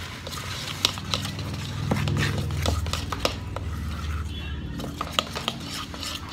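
Utensil clinking against a dish in an irregular run of sharp clicks, as food is stirred or mixed, over a low steady hum.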